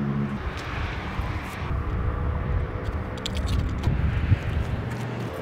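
A low, steady engine rumble with a few light clicks about three to four seconds in.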